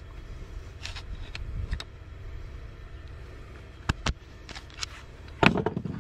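Sharp metallic clicks and knocks as a metal bean-sinker mould and a steel rod are handled and the mould is opened. The strongest knock comes near the end. A steady low rumble runs underneath.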